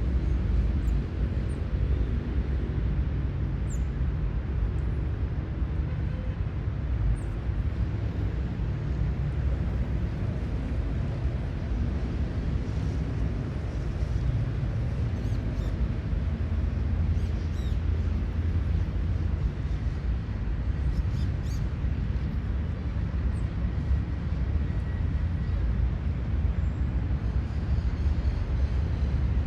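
Outdoor city-park ambience: a steady low rumble fills the background, with faint, brief high chirps of birds scattered here and there.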